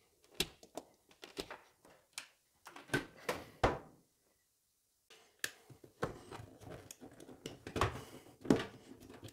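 Plugs being pulled out of wall power points by hand: a series of irregular plastic clicks and light knocks of plugs and cords, with a short lull midway.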